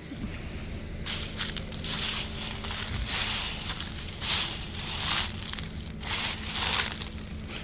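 Repeated crunching and rustling, roughly once a second, over a steady low hum.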